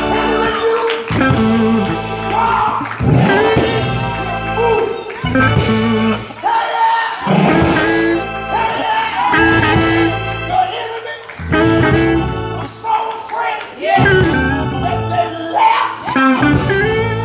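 Gospel music: a voice singing a melody over sustained low instrumental chords.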